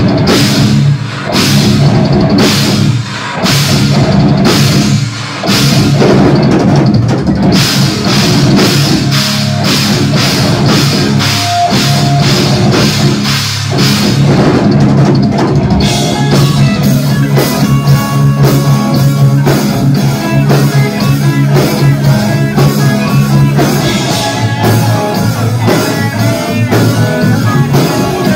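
A live rock band plays heavy music through a PA: distorted electric guitars, bass and drum kit. For the first part, crashes ring on every beat with a few short stops, then the cymbals drop back about halfway and the guitars carry on.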